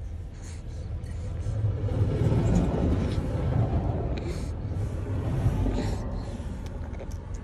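Low rumble of a moving vehicle heard from inside the cabin, swelling louder for a few seconds in the middle.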